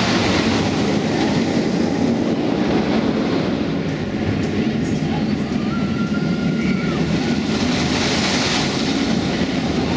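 Steel roller coaster train rumbling along its track overhead, a steady rolling noise.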